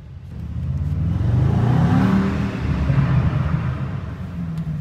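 Brabus Rocket 900's 4.5-litre biturbo V8 accelerating: the engine note climbs over the first two seconds, then falls away as the throttle eases off.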